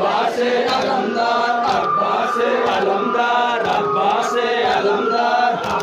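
A noha, a Muharram lament, chanted by a group of men's voices in long held lines, over a steady beat of sharp strokes about twice a second.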